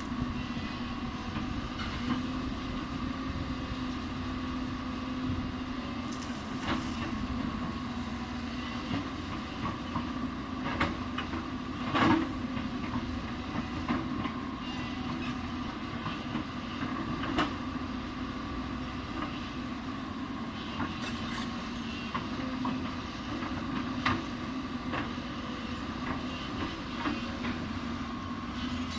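Hyundai 220 excavator's diesel engine running steadily, with scattered sharp knocks and clanks from the working machine; the loudest knock comes about twelve seconds in.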